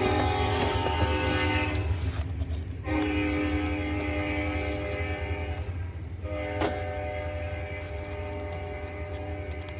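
Train horn sounding in long blasts, a chord of steady tones, over a low rumble. The horn breaks off briefly about two seconds in and again about six seconds in, then sounds again.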